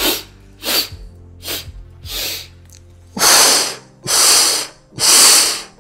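A man doing a paced deep-breathing exercise: four short, sharp breaths in, then long, loud breaths out through pursed lips, three of them about a second apart in the second half.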